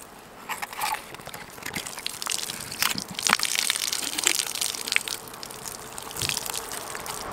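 Scissors crunching through a sea urchin's shell around its mouth: a run of irregular crunches and clicks. Seawater pours out of the opened shell.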